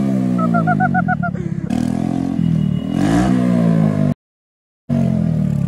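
Scooter engine running through a loud aftermarket exhaust while riding, its pitch falling and rising with the throttle. A run of short high chirps comes about a second in, and the sound cuts out abruptly for a moment near the end.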